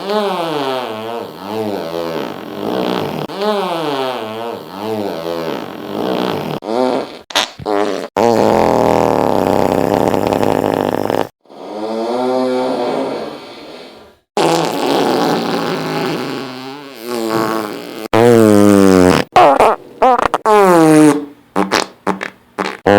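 A string of fart sounds, one after another: buzzing blasts whose pitch wavers and swoops up and down, some drawn out for a few seconds, then a quick run of short, sharp ones near the end.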